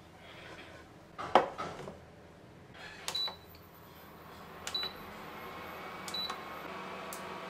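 A metal wok set down on the glass top of an induction cooktop with a clunk about a second in, then three short beeps from the cooktop's touch buttons as it is switched on and set. After that the cooktop's cooling fan hums steadily.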